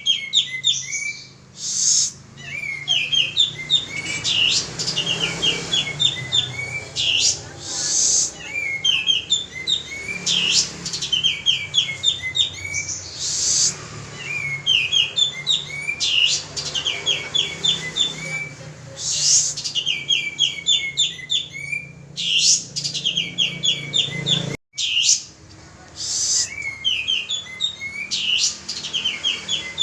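Male kapas tembak singing vigorously, as used for a lure recording. The same phrase repeats every two to three seconds, each a sharp high note followed by a quick run of short falling notes, over a steady low hum. The sound cuts out briefly about 25 seconds in.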